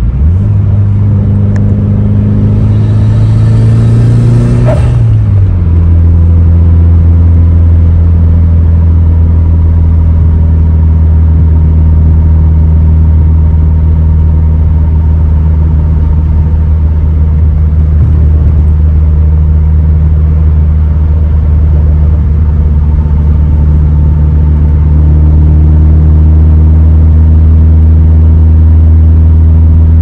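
Mitsubishi Lancer Evolution VIII's turbocharged 4G63T four-cylinder engine and road noise, heard inside the cabin while driving. The engine note climbs over the first few seconds with a brief rush of hiss, drops at about five seconds, and then settles into a steady cruising drone.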